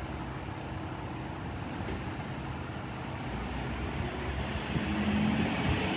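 Ford F-150 pickup engine idling steadily, growing louder over the last two seconds.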